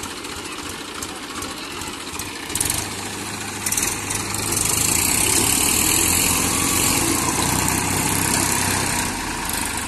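Massey Ferguson diesel tractor engines running. From about four seconds in they get louder and work hard under load as a tractor stuck in mud is dragged out backwards on a chain, its rear wheel churning. A couple of short clanks come earlier.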